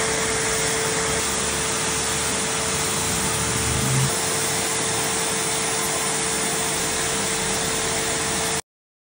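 Turbine of an HVLP paint sprayer running steadily, a rush of air with a constant mid-pitched hum as the gun sprays colour onto a concrete faux rock; it cuts off abruptly near the end.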